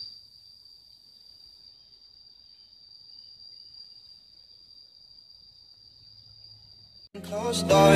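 A faint insect trill: one steady, unbroken high-pitched tone. About seven seconds in, loud electronic music cuts in abruptly.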